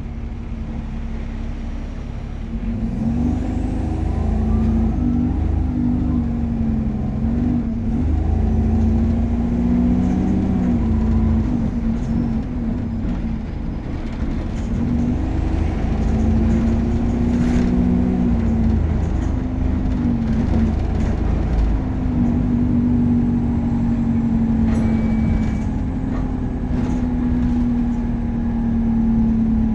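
Optare Versa single-deck bus engine pulling away and accelerating, its note climbing and dropping several times as it goes through the gears, then running at a fairly steady speed with road rumble.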